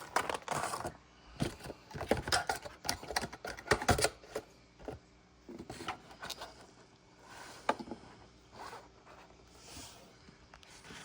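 Handling noise: a run of scrapes, rustles and clicks as objects are moved about on a surface, busiest in the first four seconds and sparser after.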